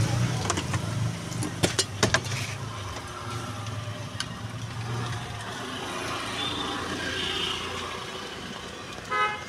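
Street traffic running in the background as a steady low hum, with a few sharp clicks of utensils on the steel counter in the first two seconds and a brief pitched sound near the end.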